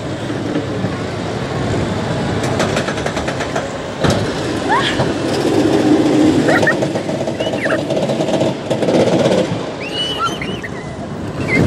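Kiddie roller coaster running: a steady rumble of the small car rolling along its track, heaviest in the middle stretch, with a few brief high squeals over it.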